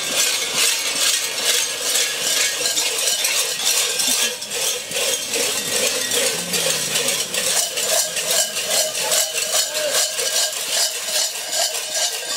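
Constant metallic jangling and clanking of bells worn by a crowd of costumed devils as they walk, the strokes close together, with a steady ringing tone under them.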